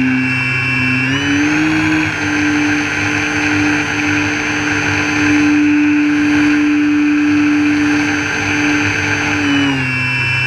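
RC airplane's motor and propeller running, heard through a camera mounted on the plane, with a steady whine; the pitch rises about a second in, holds, and falls back near the end.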